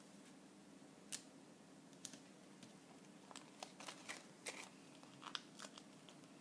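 Near silence: faint scattered taps and paper rustles from small cardstock pieces and adhesive backing being handled, coming more often in the second half, over a low steady room hum.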